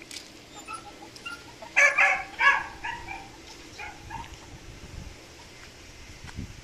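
Dog barking: three loud barks close together about two seconds in, followed by a few fainter short calls.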